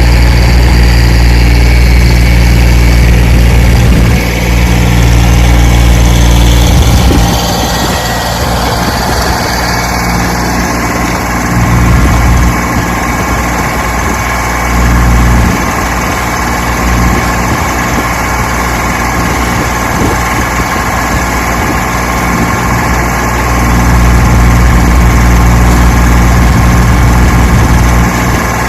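An engine running steadily, with its pitch and level shifting a few times.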